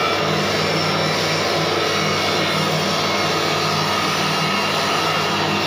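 Soap extruder running steadily under load, a constant mechanical hum from its drive as it pushes soap noodles out through the die.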